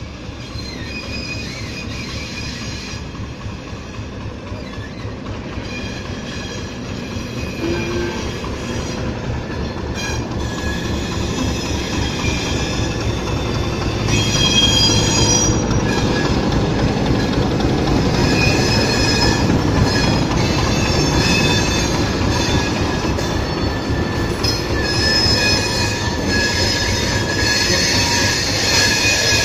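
ChME3 diesel shunting locomotive passing with a freight train: its engine rumbles low and grows louder as it draws near, then holds steady. From about ten seconds in, the wheels squeal on the rails in high tones that come and go as the locomotive and wagons roll by.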